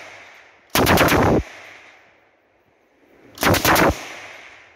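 7.62 mm machine gun firing two short bursts of a few rounds each, about a second in and again near the end, each trailing off in a long echo.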